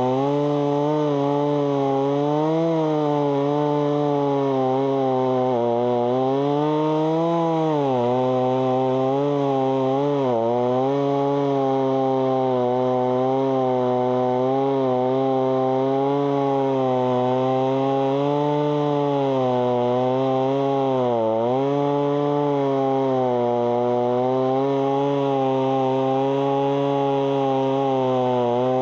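Two-stroke Stihl chainsaw held at high revs while cutting through a eucalyptus trunk. Its pitch sags and recovers under load several times, most deeply about ten and twenty-one seconds in. The bar's nose sprocket is seizing and overheating, with bar oil smoking off it.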